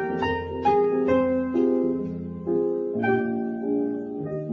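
Piano music in a light cocktail style: a medley of Broadway show tunes, with melody notes that ring on and change about every half second.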